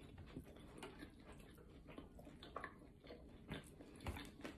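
Faint chewing of a mouthful of pizza, with a few soft mouth clicks and crunches now and then.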